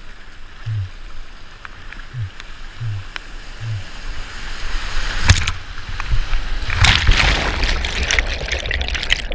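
Kayak running a flooded river weir. Under a steady hiss of moving water there are a few soft low thumps in the first four seconds, and a sharp knock about five seconds in. From about seven seconds, loud crashing whitewater fills the sound as the boat drops into the foaming water below the weir.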